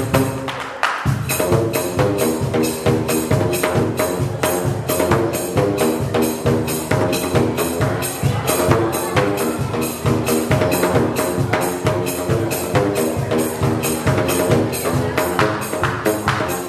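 Tuned plastic drain pipes slapped with flip-flops, playing a fast rhythmic tune of pitched, hollow strikes. The playing briefly drops away about a second in, then carries on steadily.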